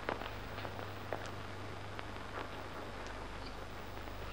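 Background noise of an old film soundtrack: a steady low hum and hiss, with scattered irregular clicks and crackles.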